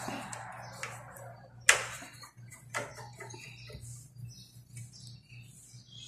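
Sharp metallic clicks and taps of a screwdriver working in a mortise door lock's metal case, with one loud click a little under two seconds in and a few lighter ones around it, over a low steady hum.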